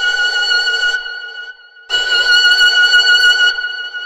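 Steam locomotive whistle sounding a single high note in long blasts: the first trails off about a second in, and a second blast starts about two seconds in and fades near the end.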